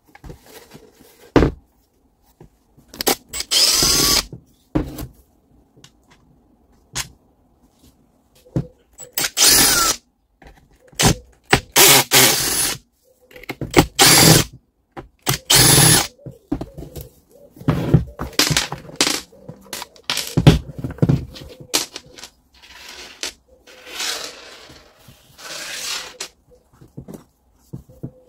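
Power drill run in short bursts, each lasting up to about a second and a half, with small clicks and knocks of parts being handled between them.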